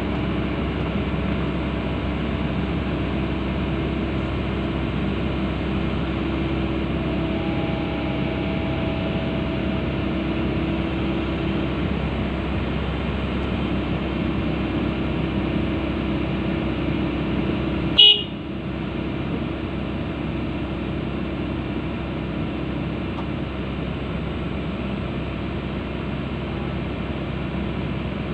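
Komatsu PC160LC-8 hydraulic excavator's diesel engine running steadily, heard from the cab. A single sharp clack about two-thirds of the way through, after which the running sound is slightly quieter.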